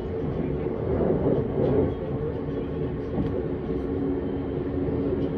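Vienna S-Bahn electric train running along the line: a steady rumble of wheels on rails with a steady hum from its electric drive.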